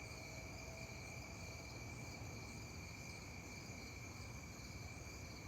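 Steady chorus of crickets and other night insects: several unbroken high-pitched trills at different pitches over a faint low background hum.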